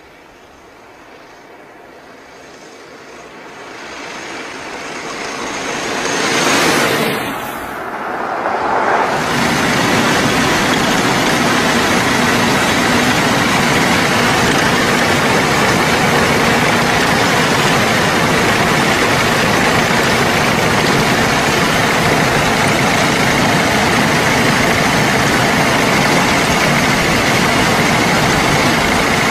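Veteran steam car driving past, growing louder to a peak about seven seconds in. Then the steady running noise of the car heard from on board, with a few constant tones held throughout.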